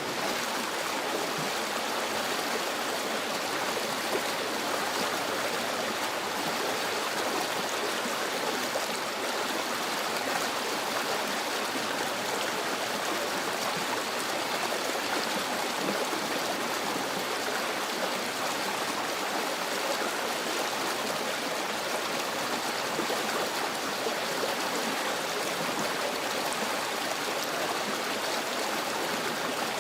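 A stream running steadily, an unbroken rush of water.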